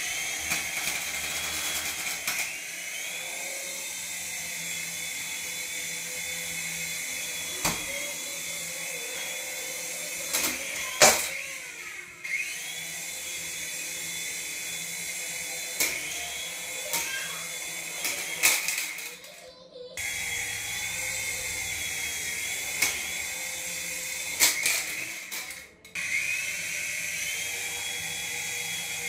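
High-pitched whine of a toy RC model's small electric motor running. It cuts out three times and spins back up with a rising whine each time, with scattered clicks and knocks.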